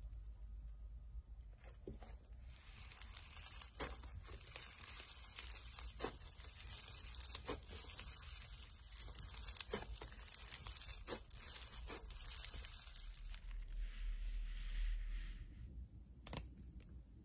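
Slime being pulled apart and squeezed in the hands, making a dense crackling, crunchy tearing sound with scattered sharp pops. Near the end it gives way to a softer hiss with a low rumble.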